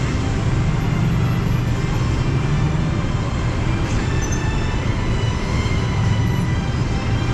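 A loud, steady low rumble: a heavy machine-like sound effect played over loudspeakers during a light and sound show.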